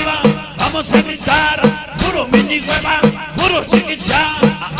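Slowed-down cumbia (cumbia rebajada) with a clarinet melody over a steady percussion beat.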